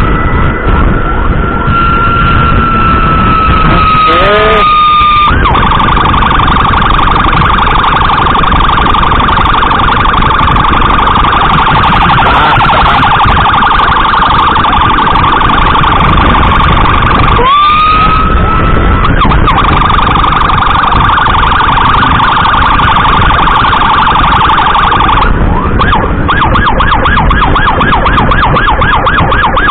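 Electronic emergency siren sounding loud and close, changing mode as it goes. A steady wailing tone sweeps up and drifts slightly lower, then gives way to a dense warble. About 17 seconds in it sweeps up again, and near the end it switches to a fast yelp of rapid repeating rises.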